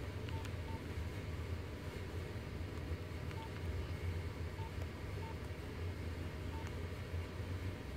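Nokia mobile phone keypad beeping as menu keys are pressed: short single-pitch beeps, about six of them at uneven intervals, over a low steady hum.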